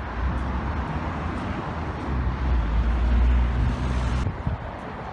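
Road traffic noise beside a multi-lane street: a steady low rumble that swells a little past the middle and eases off about four seconds in.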